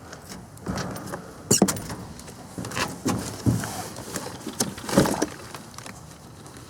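Irregular knocks, clanks and scrapes of metal sawmill parts and hardware being handled and set down during unpacking, with louder knocks about a second and a half in and again near five seconds.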